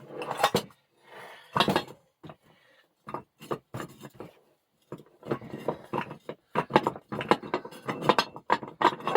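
Steel bench-vise parts clinking and knocking against each other as a stubborn part is worked into place during reassembly. A few scattered knocks come first, then a fast run of clinks in the last four seconds.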